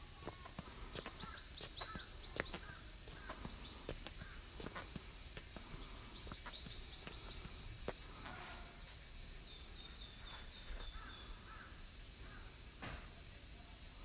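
Forest ambience. Birds call in short runs of quick repeated notes over a steady high insect buzz, with scattered footsteps on the path.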